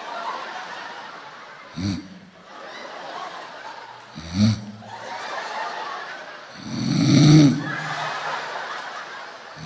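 A woman imitating a man's snoring with her voice: two short snorts, then a long, louder snore about seven seconds in, the snore building from soft to loud. Laughter runs underneath.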